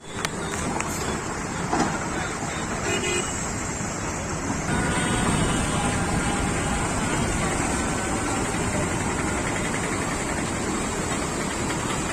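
Road traffic: a steady noise of passing vehicles, with a horn tooting briefly about three seconds in and another pitched sound, likely a horn, from about five seconds on.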